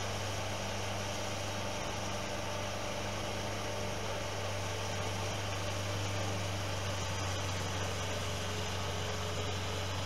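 New Holland skid steer's engine running steadily as the machine moves, a constant low hum with no revving.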